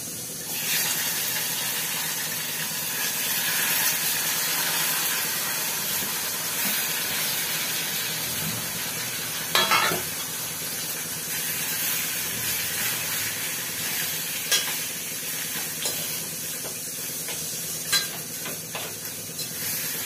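Food sizzling as it is added to hot tempering oil in a small steel pan and stirred: cucumber chutney going into the talimpu. The sizzle starts about half a second in, and the spoon clicks against the pan a few times.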